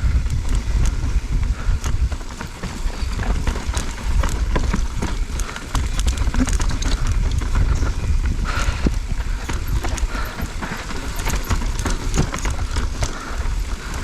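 Mountain bike being ridden over a rough trail, its frame and parts rattling and knocking irregularly over a heavy low rumble of wind and ground noise on a helmet chin-mounted camera.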